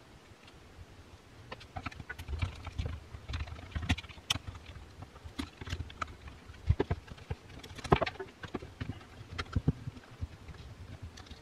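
Irregular clicks, taps and light knocks of hand tools, screws and a reciprocating saw's plastic housing being handled while it is taken apart, starting about a second and a half in.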